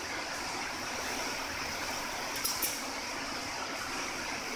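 Long-arm industrial sewing machine running steadily as it stitches binding tape onto heavy fabric, with a quick pair of sharp clicks a little past halfway.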